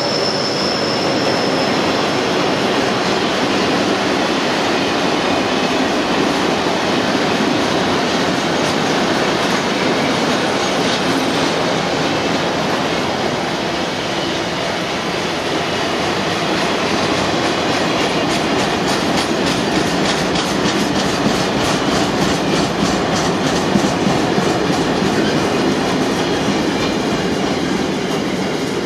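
Freight train of car-carrier wagons running past at speed, a steady loud rumble of wheels on rail. A high steady wheel squeal fades out in the first couple of seconds, and in the second half a regular clickety-clack of wheels over rail joints comes through.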